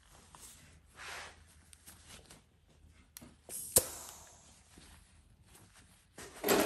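Paper shop towel rustling faintly as it is rubbed over the mixing tip of a two-part seam sealer cartridge, with one sharp click a little under four seconds in and a louder spell of handling noise near the end.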